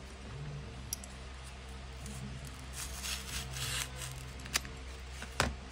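Packaging being handled and opened by hand: scattered rustling with a few sharp clicks, one about a second in and two more near the end.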